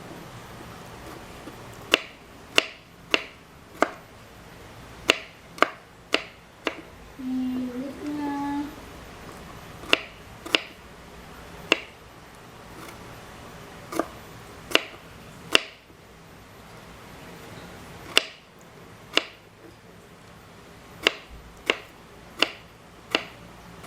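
Knife chopping on a cutting board: single sharp strikes at irregular intervals, roughly one a second.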